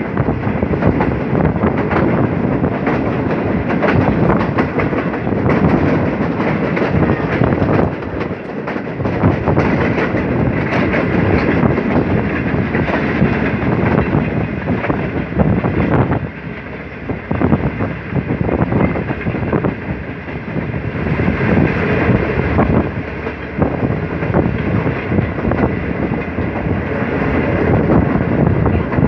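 Passenger train running along the track, heard from an open coach doorway: the wheels clatter over the rail joints under a steady rolling rumble.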